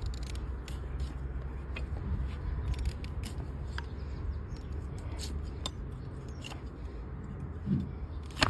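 Hoof knife paring away an overgrown donkey hoof's horn: irregular sharp crunching cuts, about one every half second, over a steady low rumble.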